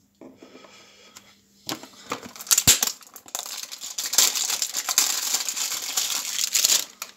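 Plastic packaging crinkling as it is handled, with one sharp knock about two and a half seconds in.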